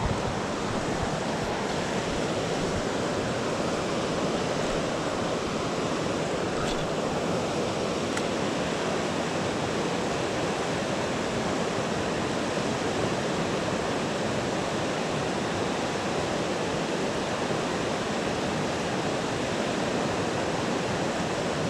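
Fast mountain river rushing over rapids: a steady, even wash of water noise.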